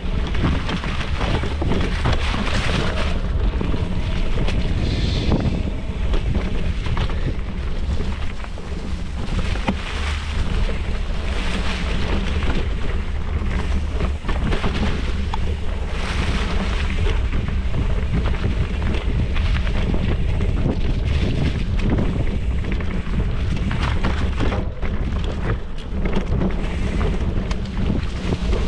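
Yeti SB115 mountain bike riding singletrack, heard from a handlebar-mounted camera: knobby Minion DHR tires rolling over dirt with a steady rumble, frequent small knocks and rattles from the bike over roots and rocks, and wind buffeting the microphone.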